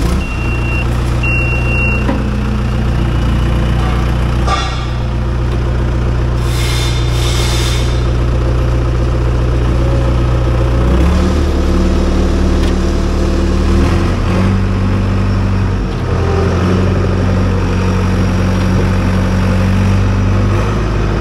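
John Deere crawler dozer's diesel engine, just started and running steadily, heard from the operator's seat; a warning beeper sounds twice in the first two seconds. The engine note changes about 11 seconds in and again a few seconds later as the operator works the transmission control lever.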